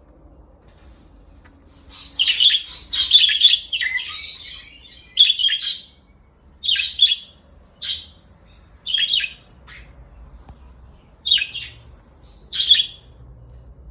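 Pet budgerigars calling: a string of about nine short chirps and calls, starting about two seconds in and spaced roughly a second apart.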